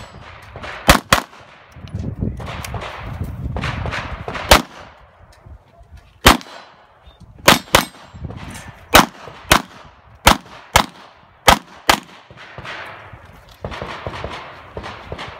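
Handgun shots fired on a USPSA stage, about a dozen, many of them in quick pairs. After the first pair comes a gap of about three seconds, then a faster run of pairs and single shots in the second half.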